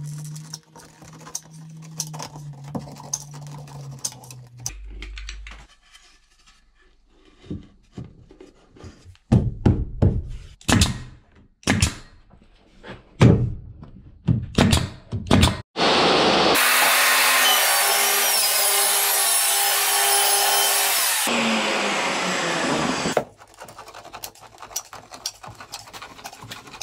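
Bostitch nail gun firing a quick series of sharp single shots into pine shiplap boards. It is followed by about five seconds of loud steady hissing, then scattered clicks of a caulking gun as adhesive is squeezed out.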